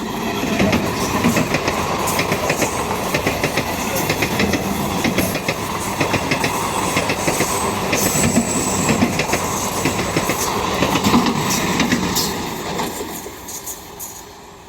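A train passing close by at speed, its wheels clattering rapidly over the rail joints over a rumble. The sound builds in the first second and fades away over the last two seconds.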